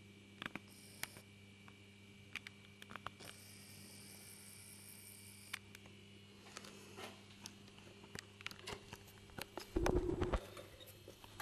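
Steady low electrical hum with scattered small clicks and ticks of handheld camera handling, and a brief louder rumbling knock about ten seconds in as the camera is swung around.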